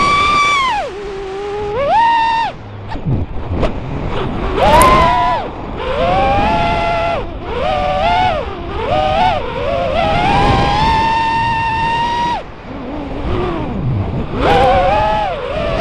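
Motors and propellers of a 5-inch Chameleon FPV freestyle quadcopter, heard from its onboard camera: a whine that rises and falls in pitch with each burst of throttle, held level for about two seconds past the middle, with short drops where the throttle is cut.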